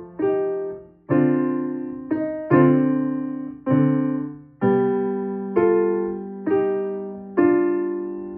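Piano played slowly in chords, about one a second, each struck and left to ring and die away. The last chord is held longer and released near the end.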